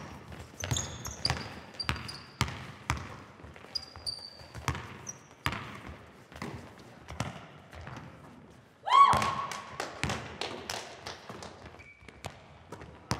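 Basketball dribbled and bouncing on a gym floor, with shoes squeaking as players run. About nine seconds in, one loud shout rises in pitch and holds for about a second.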